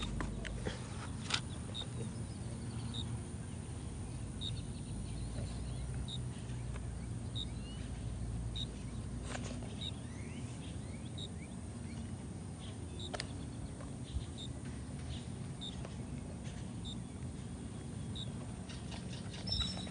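A bird repeating a short, high chirp about every three-quarters of a second, over a steady low rumble.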